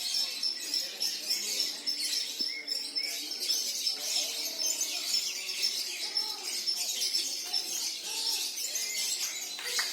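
Many lovebirds singing at once: a dense, unbroken chorus of rapid high chirps and long trills.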